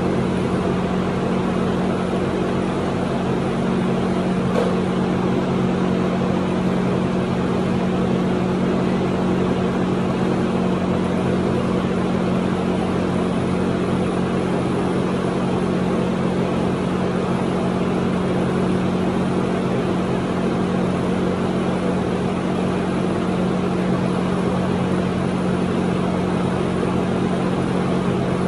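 A steady droning hum with a constant rushing noise from a running machine, unchanging throughout.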